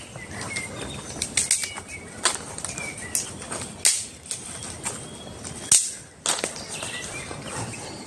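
Forest ambience: short bird chirps over a steady high-pitched hiss, broken by irregular sharp snaps and clicks, the loudest about two-thirds of the way through.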